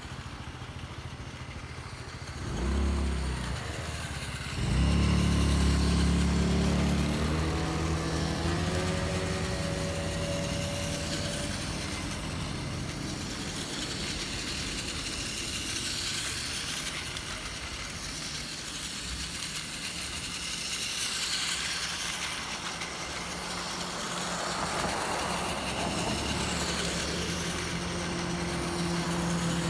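Road vehicle engine pulling away, its drone rising in pitch over several seconds, then running on at a steady low rumble.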